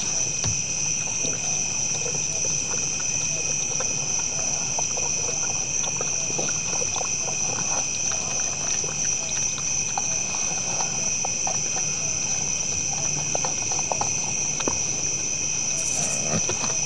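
Steady chorus of night insects such as crickets, with scattered close crunching and clicking from whitetail bucks eating from feed pans.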